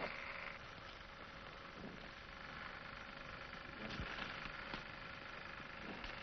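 Faint, steady hiss with a low hum and a few soft crackles, the background noise of an old film soundtrack.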